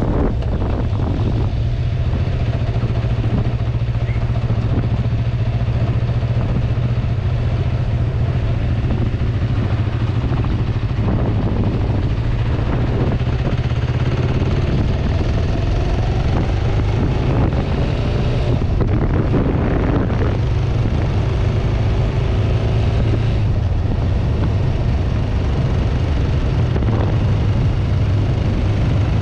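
1994 Kawasaki Vulcan 500's parallel-twin engine running while riding, with wind rushing over a handlebar-mounted GoPro. The engine's pitch shifts about halfway through.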